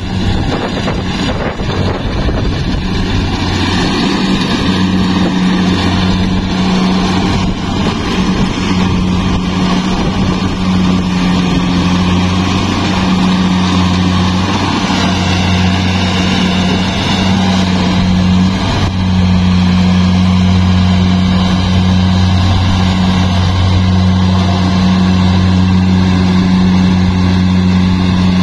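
Combine harvester's diesel engine running steadily with a low, even hum, growing a little louder about two-thirds of the way through.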